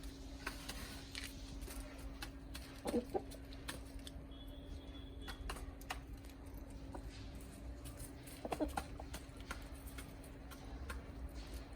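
Backyard chickens clucking in two short bursts, a few seconds in and again past the middle. Scattered light clicks and taps sound in between, over a steady low hum.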